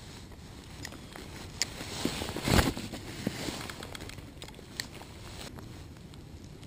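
Handling noise from a small spinning reel and rod held close by: a few light clicks and rustles, with a louder rustling thump about two and a half seconds in.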